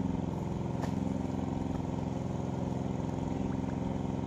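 Engine of a water pump draining the pond, running steadily at one constant speed.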